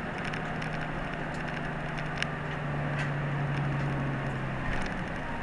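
Route bus heard from inside the cabin while driving: a steady low engine drone over road noise that swells about halfway through, with a few sharp clicks and rattles from the interior.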